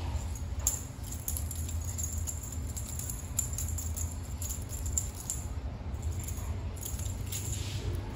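A kitten playing with a toy mouse on a string across a tile floor: scattered light clicks and rattles as the toy and string skitter and the kitten's paws strike the tiles, over a steady low hum.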